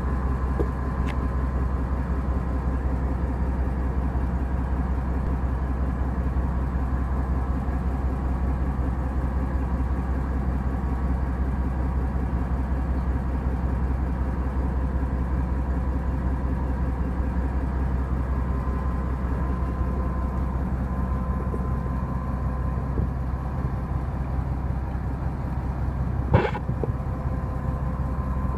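Fishing boat's engine running steadily, a constant low drone with a steady hum. A single sharp knock near the end.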